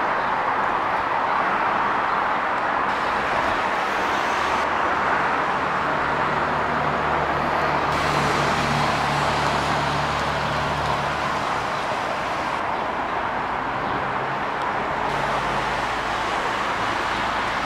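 Steady hiss of road traffic. A heavier vehicle's engine hum comes through for several seconds in the middle and again briefly near the end.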